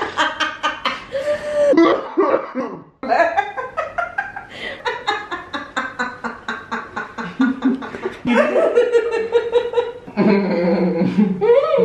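A woman laughing hard and long in fast repeated bursts, with a brief pause about three seconds in.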